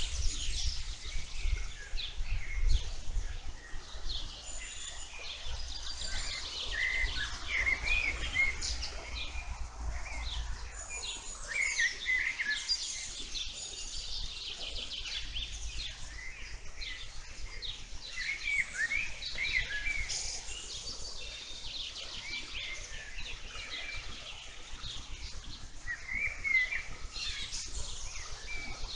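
Several songbirds singing and chirping in a meadow, many quick overlapping chirps and trills, over a low rumble that is strongest in the first few seconds.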